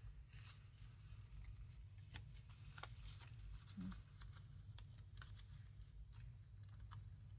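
Faint rustling and light clicks of paper cards and tags being picked up and laid down, over a low steady room hum.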